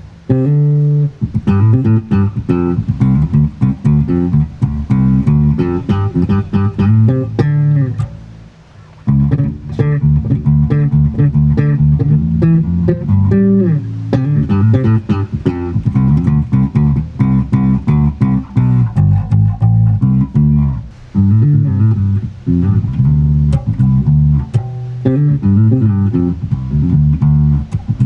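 Electric bass guitar played through an effects pedal and a miked bass amp for a sound check: a steady run of plucked notes, with a brief break about eight seconds in before the playing resumes.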